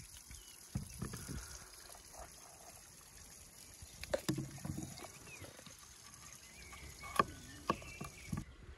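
A knife cutting through peeled raw potatoes held in the hand, the chunks dropping into a wooden bowl with a series of knocks and clicks.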